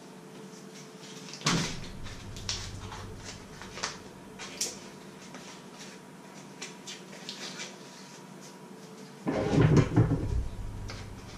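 A refrigerator door shuts with a knock about a second and a half in. Then come small crackles and clicks of a paper butter wrapper being unfolded, and a louder burst of knocking and clatter about nine seconds in.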